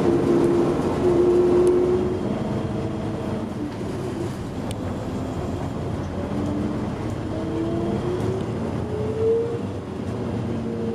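1985 MAN SL200 city bus's diesel engine running under way, heard from inside the passenger cabin. The drone holds steady, then its note climbs as the bus gathers speed and drops back about nine seconds in.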